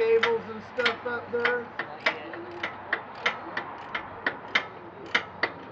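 Hand socket ratchet clicking in a steady rhythm, about three clicks a second, as a bolt on the mower is worked loose or tightened.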